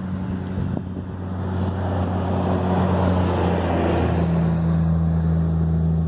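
A motor vehicle's engine hums steadily, with a swell of road noise about halfway through. The engine note drops a little in pitch soon after, as a vehicle does when it passes.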